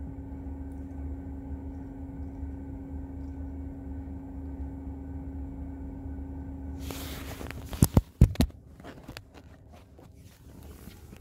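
Tesla Model 3 cabin climate system running with a steady fan drone and a constant hum. About seven seconds in there is rustling and a few sharp knocks as the phone is handled and moved, after which the drone sounds muffled.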